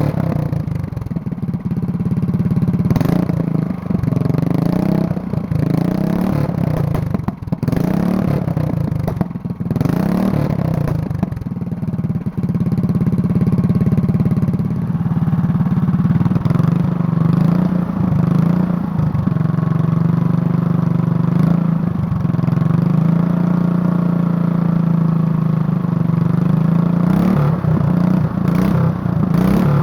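136cc single-cylinder go-kart engine with its governor removed and a header pipe fitted, running and revved up and down repeatedly over the first ten seconds or so, then held at a steady speed, with a few more revs near the end.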